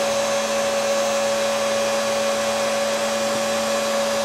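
Heat gun running steadily: a constant rush of blown air with a steady hum.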